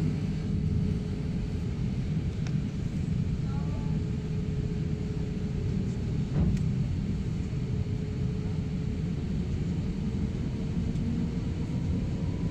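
Steady low rumble of an airliner cabin while the jet taxis, with a constant hum running through it.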